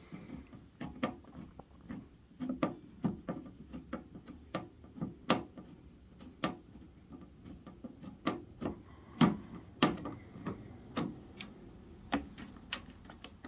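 Irregular light clicks and taps, a few a second, of a screw being turned and handled in an electric heater's housing, with a couple of louder knocks around the middle.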